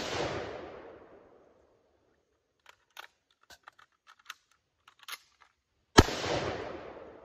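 A .308 M14-type semi-automatic rifle. The echo of a shot fired just before fades over the first second and a half. Small metallic clicks and clacks of a magazine change follow, and one loud shot comes about six seconds in, with its echo rolling off.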